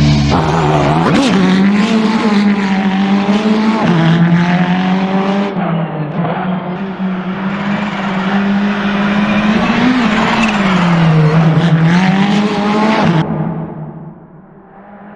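Ferrari 488 GT3's twin-turbo V8 racing engine running hard, its pitch dropping and climbing with gear changes, then falling away sharply in loudness about two seconds before the end.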